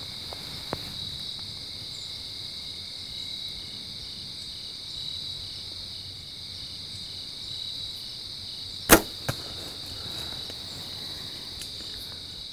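A compound bow is shot at a deer: one sharp, loud snap of the string about nine seconds in, followed a split second later by a fainter click. A steady high chorus of crickets and other insects trills underneath.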